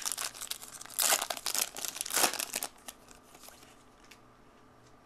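Foil trading-card pack wrapper crinkling as it is torn open and handled, in two loud spells of crackling within the first three seconds, then only faint rustling.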